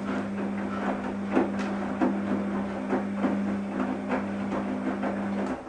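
Washing machine running: a steady motor hum with irregular clicks and knocks over it, cutting off suddenly near the end.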